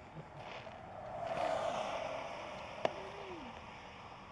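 A vehicle passing, its noise swelling for about a second and then fading, with one sharp crack of a distant firework just before the end.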